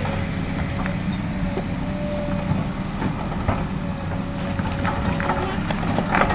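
Komatsu PC200 hydraulic excavator's diesel engine running steadily, with a thin whine that comes and goes and a few light knocks.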